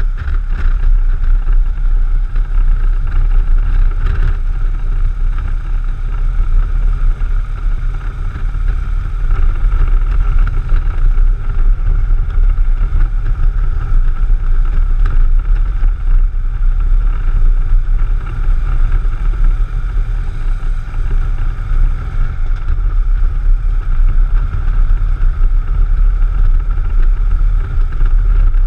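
A touring motorcycle cruising steadily along a highway: constant wind rumble on the microphone over engine and road noise, with no change in speed.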